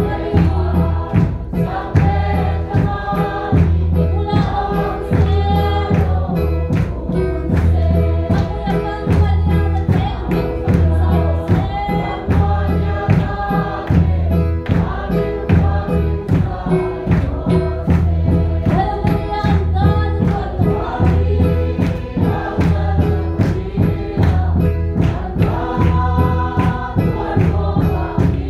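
A congregation singing a gospel hymn together to the steady beat of a large barrel drum.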